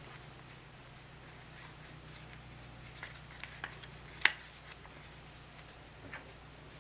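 Origami paper being handled and folded: faint crinkling with a few short, sharp paper clicks, the loudest about four seconds in, over a low steady hum.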